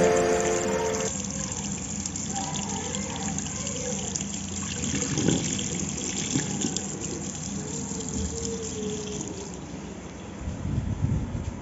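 Water from a tap running steadily into a ceramic washbasin while a hand is rinsed under the stream. A few low knocks come near the end.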